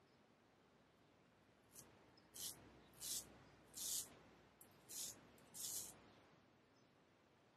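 Dumas Aîné 'Trente Deux' 32 straight razor scraping through lathered stubble in five short, crisp strokes, a little under a second apart, from about two seconds in to six seconds in.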